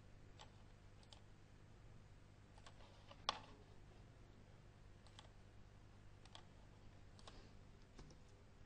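Sparse single clicks from a computer mouse and keyboard, about eight in all, one much sharper and louder than the rest about three seconds in, over a faint steady hum.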